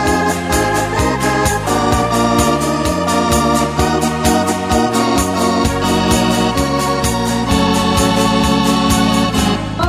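Background music led by an electric organ, with sustained chords over a stepping bass line and a steady beat.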